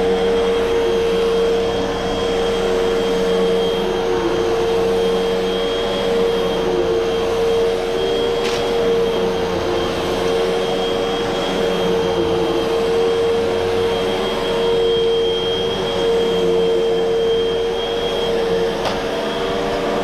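Hoover upright vacuum cleaner running steadily on carpet: a constant motor hum with a thin high whine over the rush of air. Two brief clicks, one about eight seconds in and one near the end.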